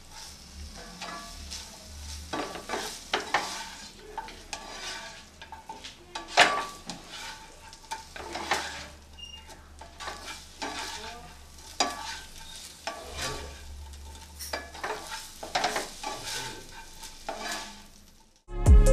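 Plastic spatula scraping and tossing chicken strips around a non-stick frying pan in irregular strokes, over a light sizzle of butter, as the already-boiled chicken is browned with spices. Music cuts in at the very end.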